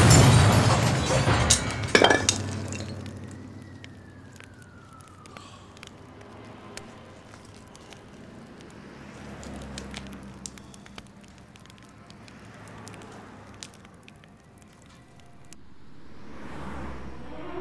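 A loud sudden crash that rumbles away over several seconds, with a second sharp crack about two seconds in. A short falling whistle follows, then quieter rustling, and music swells in near the end.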